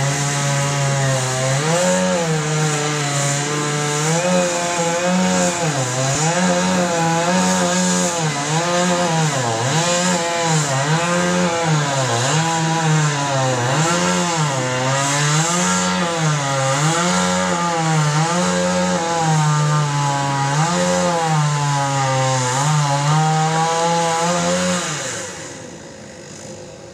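Two-stroke chainsaw running at full throttle through a tree trunk in the felling back cut. The engine pitch dips and recovers about once a second as the chain bogs under load and frees again. About 25 seconds in, the saw comes off the cut and the sound drops away.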